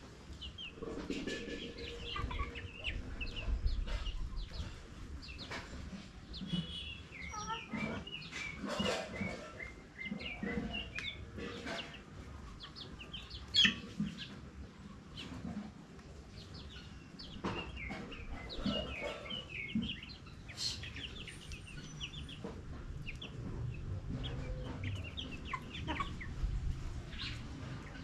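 Domestic chickens clucking, mixed with many short high chirps. A single sharp knock about halfway through is the loudest sound.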